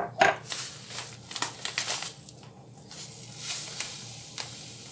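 Sugar being scooped from a plastic bag into a drinking glass: the bag crinkles and the granules hiss against the glass, with a couple of sharp taps of glass on metal near the start.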